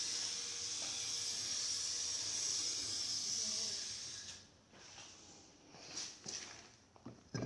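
A steady high hiss that cuts off about four seconds in, followed by a few light knocks.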